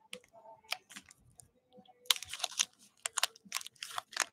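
Hands handling trading cards and their packaging: a few light clicks, then from about two seconds in a dense run of crackling and clicking.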